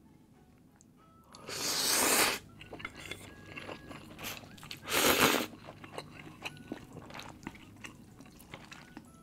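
A person eating a bowl of instant spicy laksa: two loud slurps, the first about a second and a half in and the second about five seconds in, then wet chewing with small clicks of the mouth.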